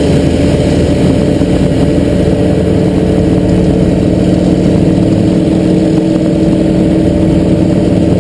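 A light plane's engine drone heard from inside the cockpit in flight, running steadily at one pitch with no change in revs, over a hiss of rushing air.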